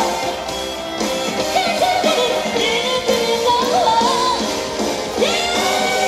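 Live pop song: a woman's amplified singing voice over instrumental backing with guitar.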